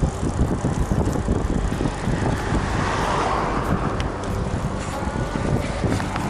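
Wind rumbling on the microphone of a camera riding on a moving bicycle, over tyre and street traffic noise, swelling about halfway through. A few faint clicks.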